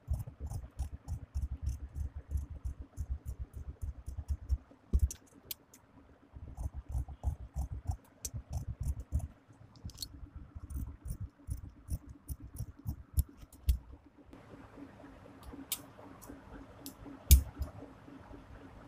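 Tailor's scissors cutting through stiff folded canvas along a curved neckline: a run of short snips and crunching cuts in bursts with brief pauses, fewer toward the end, with one louder snip near the end.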